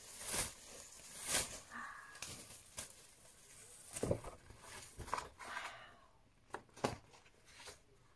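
Rustling and swishing of coloured ribbon streamers being shaken by hand, in short irregular bursts. This gives way to quieter handling sounds near the end as they are put down.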